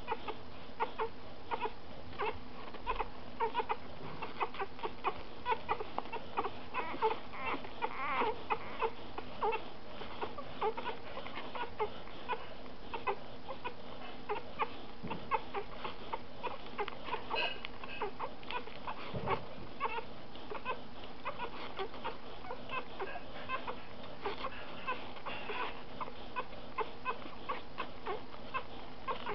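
Three-day-old Eurasier–Samoyed cross puppies squeaking and whimpering as they nurse, a steady stream of short squeaks several a second.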